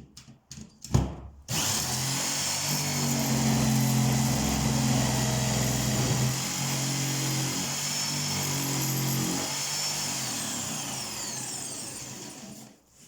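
Electric drill running steadily for about ten seconds, starting just after a few clicks and a knock and tailing off near the end.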